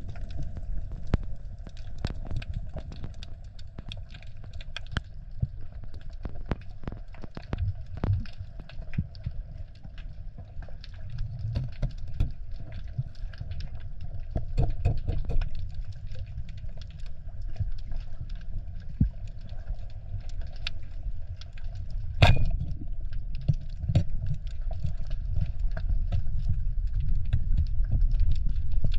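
Underwater sound of a spearfishing dive: a low rumble of water against the camera housing with scattered small clicks, and one sharp crack about three quarters of the way in, the speargun firing and striking a fish.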